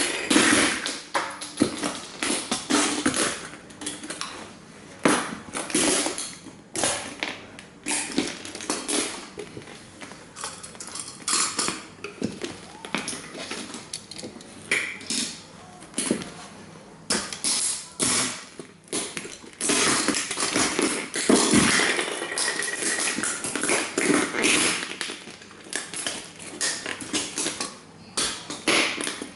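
Justin cowboy boots stomping on and crushing plastic model toy trains: irregular cracks, snaps and crunches of breaking plastic, with the stomps coming one after another.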